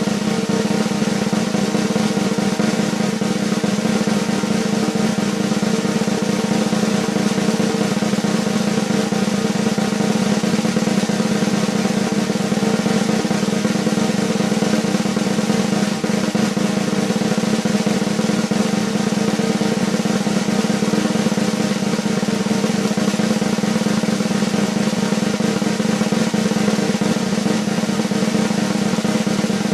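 Snare drum roll, a sustained continuous roll of rapid strokes at an even level without a break.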